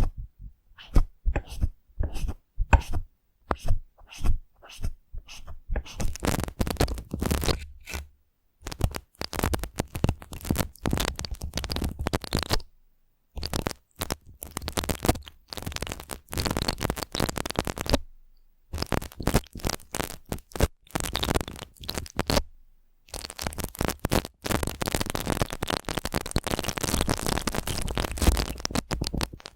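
Prickly brush strokes, close-miked: first a quick run of short, separate strokes, then longer stretches of dense scratchy brushing broken by short silences.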